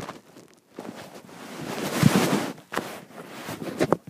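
Rustling, rubbing noise and knocks on the microphone as the recording device is handled and moved with its lens covered, loudest for a couple of seconds in the middle.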